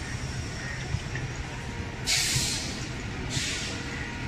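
Suburban electric multiple unit (EMU) train rolling into the platform with a steady low rumble, its air brakes letting out two sharp hisses, the louder one about two seconds in and a shorter one about a second later, as the train slows.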